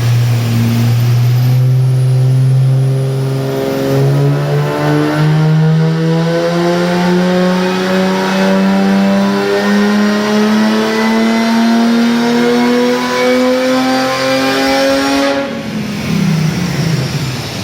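Turbocharged V6 engine of a Holden Commodore pulling hard under load, its note climbing steadily in pitch for about fifteen seconds, then dropping off as the throttle is released near the end.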